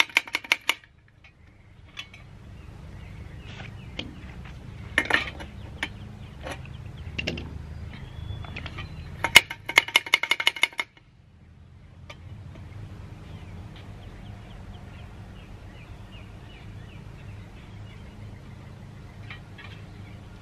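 Rapid metallic clicking and rattling of an antique brass blowlamp being worked by hand, in two short runs: one at the start and one about nine to eleven seconds in. A low, steady rumble lies underneath.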